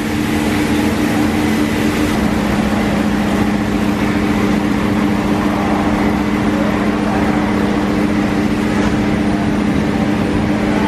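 Automatic rollover car wash machine running: big rotating brushes scrubbing along a car's body with water spray, over a steady two-note motor hum that gets louder about two seconds in.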